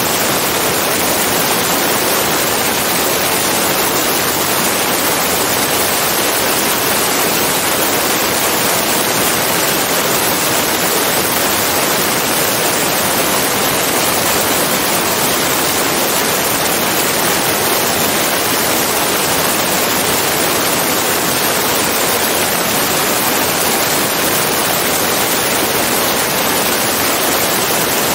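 Steady, loud rushing wind noise from the airflow over a camera mounted on the outside of a tow plane in flight, an even roar without any distinct engine note or change.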